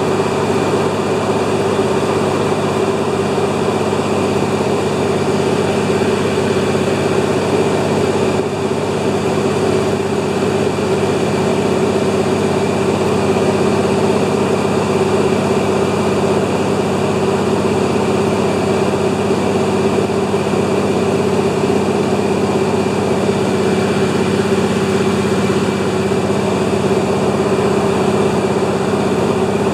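De Havilland Beaver's engine and propeller running steadily at constant power, a loud drone with a couple of steady tones that neither rise nor fall.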